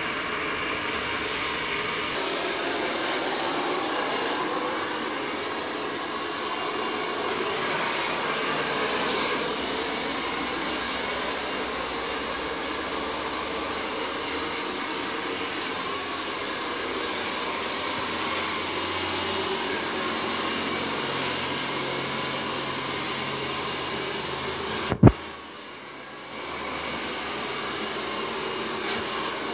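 Hand-held hair dryer blowing steadily while long hair is blow-dried with a brush. The airflow gets fuller about two seconds in. Near the end there is a single sharp click and a short drop in level, then the dryer noise returns.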